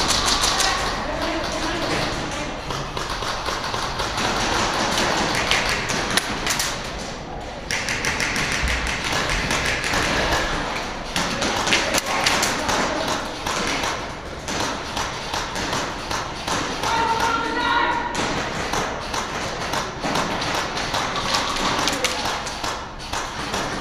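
Airsoft guns firing during a game: irregular runs of sharp taps and thuds throughout, with players' voices in the background.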